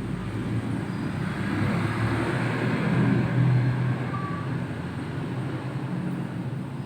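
Road traffic noise, swelling to its loudest about three seconds in and then easing, like a vehicle passing.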